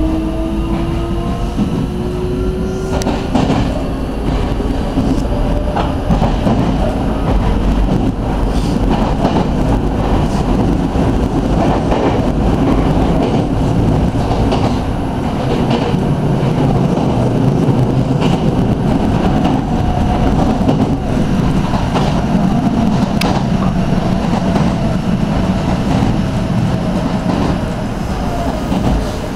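Electric commuter train on the Meitetsu Komaki Line, heard inside the passenger car: the motors whine rising in pitch as it accelerates in the first couple of seconds, then a steady wheel-on-rail rumble with occasional clicks as it runs between stations.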